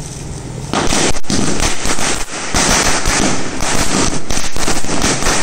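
A string of small firecrackers going off, a rapid run of sharp bangs that starts about a second in and lasts for several seconds.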